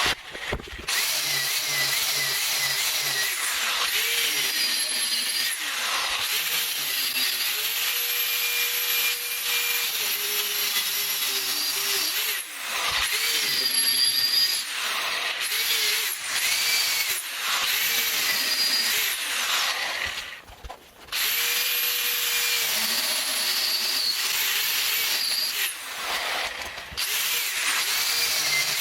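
Handheld power tool working steel, its motor whine wavering under load; it runs almost continuously and dips briefly twice.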